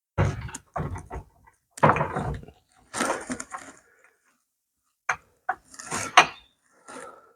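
Metal scraping and clunking as the Model T's driveshaft assembly is shifted and nudged to line up with the back of the transmission: several short scrapes in the first four seconds, then sharp knocks, the loudest about six seconds in.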